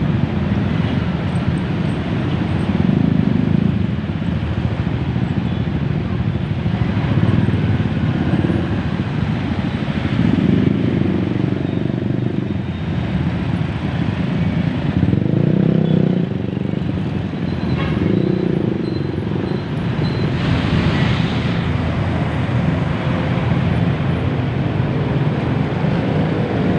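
Dense, crawling road traffic: a steady low rumble of engines that swells every few seconds as vehicles edge past, with a brief hiss about twenty seconds in.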